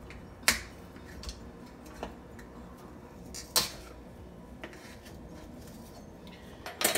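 Hot frying oil in a pot popping with a few irregular sharp crackles over a low background, the loudest about half a second in, at three and a half seconds and at the very end. The oil has got too hot.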